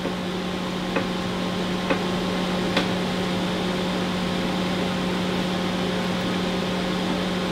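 Steady hum and fan-like noise from running bench test equipment, with a few faint clicks in the first three seconds.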